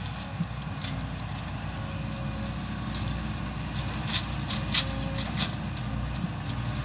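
Hitachi Zaxis 110 excavator's diesel engine running steadily, with a few short sharp cracks and knocks, the loudest of them about four to five and a half seconds in.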